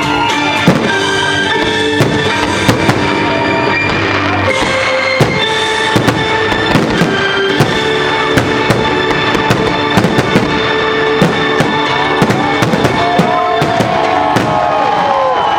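Fireworks display: many sharp bangs in quick, irregular succession, heard over loud music with long held notes.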